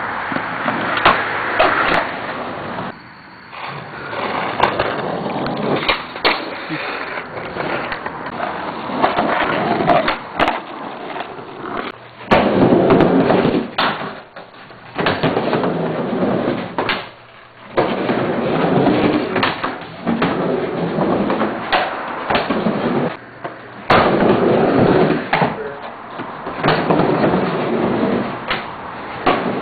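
Skateboard wheels rolling on ramps, with sharp clacks and impacts of the board. The sound cuts off and changes abruptly several times.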